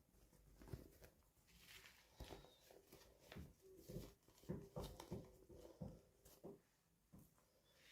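Faint, irregular light clicks and rustles of small objects being handled, several a second.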